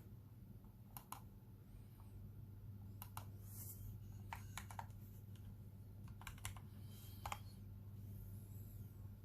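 KBD67 v2 custom mechanical keyboard with tuned Cherry MX Black retooled linear switches, a brass plate and PBT doubleshot keycaps, keys pressed one at a time. Faint, scattered clacks with pauses between them, some in quick pairs or threes, over a steady low hum.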